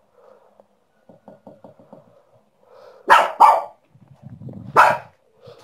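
Small dog barking sharply: two quick barks about three seconds in and a third a second and a half later, with a low rumble just before the last one.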